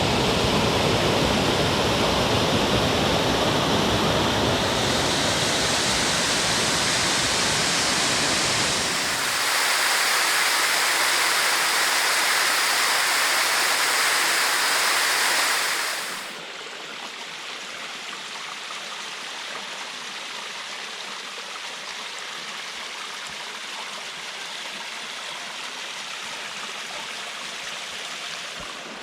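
Rushing water of a waterfall and mountain creek, a steady loud hiss of falling and flowing water. About nine seconds in the deep low rumble drops away, and about sixteen seconds in the sound turns suddenly quieter and softer, as the water heard changes.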